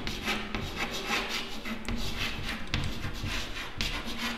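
Chalk scratching and tapping on a chalkboard as a word is handwritten: an irregular run of short scrapes and taps.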